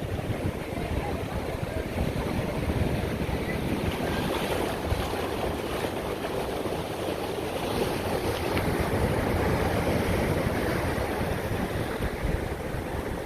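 Ocean surf washing on a rocky beach, rising and falling in gentle swells, with wind buffeting the microphone.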